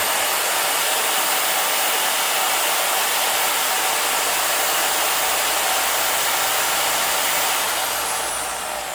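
Power drill spinning a buffing mop at full speed while polishing compound is worked onto it: a steady motor whine and rushing noise, which winds down near the end as the drill is let off.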